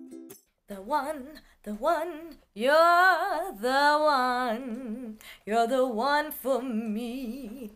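A woman singing a slow pop melody in short phrases with brief pauses between them, her voice wavering and gliding in pitch.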